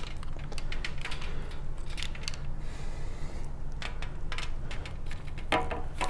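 Handling noise: a thin cable being pulled out and handled, with scattered light clicks and a brief rustle near the middle. The cable is then dropped in a loose pile on the tabletop.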